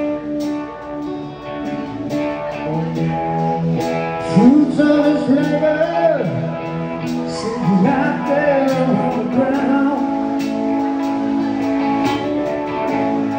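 Live rock band playing a slow song: a Les Paul electric guitar with drums, and a male lead voice singing from about four seconds in.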